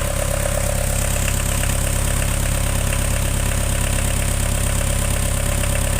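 Diesel engine running steadily at about 1500 rpm.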